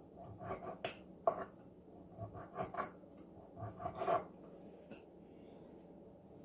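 Close-up mouth sounds of a person chewing raw clam meat, in short irregular bursts with a sharp click about a second in.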